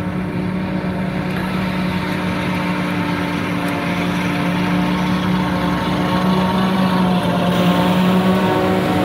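John Deere 8400 self-propelled forage harvester running under load while picking up a grass windrow, its engine and chopping gear making a steady hum that grows louder as it comes closer, with the tractor hauling the trailer running alongside.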